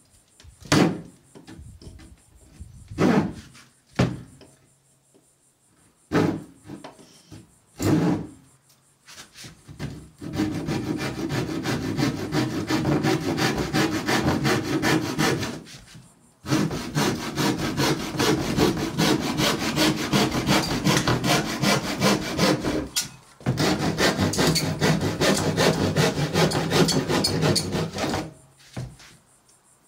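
Sharp hand saw cutting through a plywood floor panel: a few slow, separate starting strokes, then fast, steady back-and-forth sawing in three long runs with brief pauses between them.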